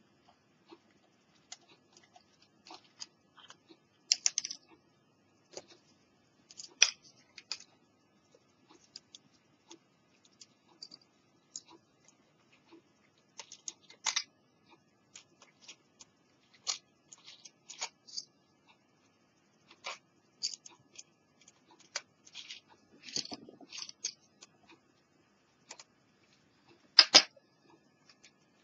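Irregular small clicks and ticks, a few of them sharper and louder, from a Panasonic portable cassette player being opened up by hand: its small case screws, a precision screwdriver and the plastic casing knocking and clicking.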